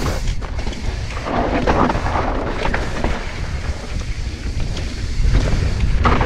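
Wind buffeting the microphone and a steady low rumble of a mountain bike rolling fast down a rocky dirt trail, with scattered sharp rattles and knocks as the tyres and bike go over rocks; the rumble grows heavier near the end.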